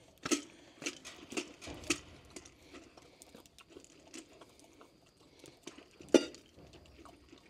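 Wet dog food being shaken and knocked out of a tin can onto kibble in a stainless steel bowl: four short knocks and plops about half a second apart, then one sharper knock about six seconds in.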